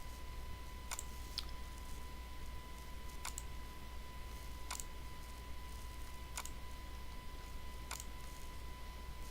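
Computer mouse button clicking: about six single clicks spaced one to two seconds apart, over a faint steady hum with a thin high whine.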